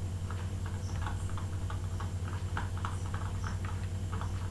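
Computer mouse clicking repeatedly at an irregular pace, a few clicks a second, over a steady low hum.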